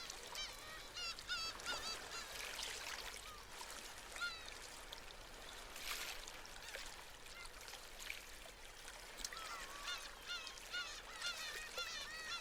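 Seabirds giving many short, quick cries, bunched in the first few seconds and again near the end, over the soft wash of small waves breaking.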